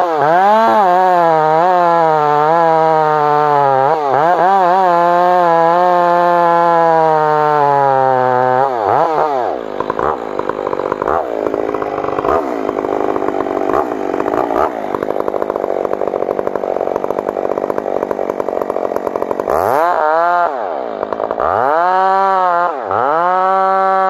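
Two-stroke chainsaw cutting into a large tree trunk at full throttle, its engine pitch sagging and recovering as the bar loads in the wood. A little before halfway the engine note turns rough and uneven for about ten seconds. Near the end it dips sharply twice, then runs steady and high again.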